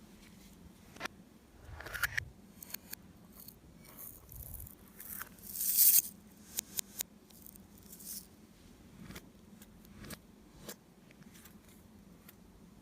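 Slime being handled and squeezed, making sticky clicks and small crackling pops, with one louder squelch about six seconds in.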